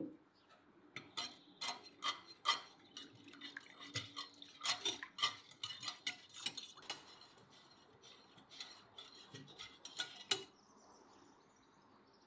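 A kitchen utensil clinking and tapping against a dish, in many quick, irregular strikes that stop about ten seconds in.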